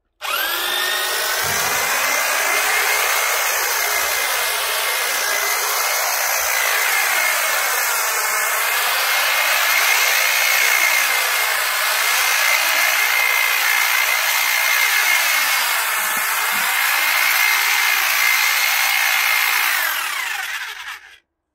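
Titan long-reach hedge trimmer running and cutting a privet hedge: it starts abruptly, runs with a steady whine whose pitch dips and rises as the blades bite into the hedge, then winds down near the end.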